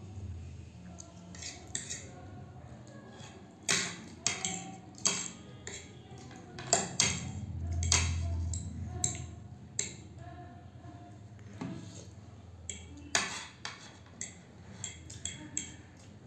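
Metal fork and spoon clinking and scraping against a plate as noodles are gathered and eaten, in irregular sharp clinks, a few of them louder.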